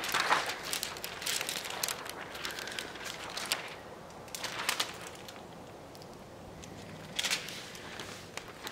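Window tint film crinkling and crackling in bursts as its clear backing liner is peeled away and the thin plastic sheet is handled, with a quieter stretch past the middle.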